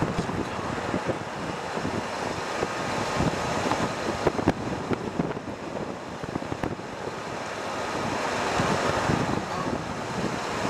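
Wind rushing and buffeting across the microphone of a camera moving along a paved road, with uneven gusts.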